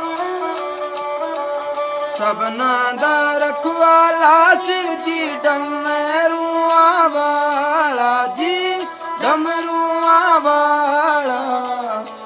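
Ravanahatha, the Rajasthani bowed stick fiddle, playing a gliding, sliding folk melody, with the jingle of the small bells on its bow running along with every stroke.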